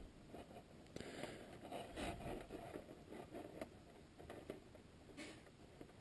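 Faint rustling with scattered light taps and clicks.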